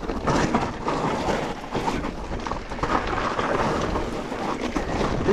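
Mountain bike riding down a rough, steep dirt trail: a steady rumble of tyres and wind with frequent clatters and knocks as the bike hits bumps.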